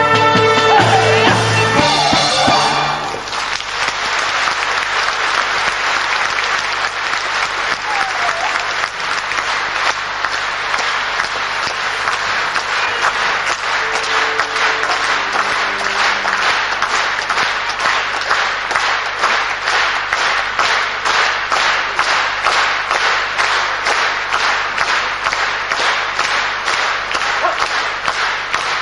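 Band music closes on a final chord about three seconds in. A large theatre audience then applauds without a break, the clapping falling into a regular beat of about two to three claps a second.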